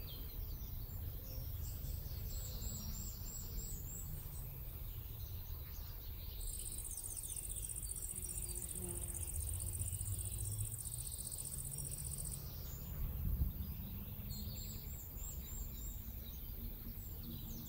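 Outdoor field ambience: scattered bird chirps over a low rumble. From about six seconds in, an insect gives a high, steady buzz that lasts about six seconds.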